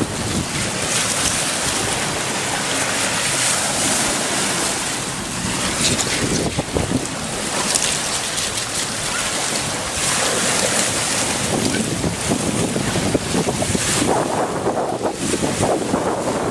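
Small sea waves breaking and washing over a pebble shore, in surges, with wind buffeting the microphone.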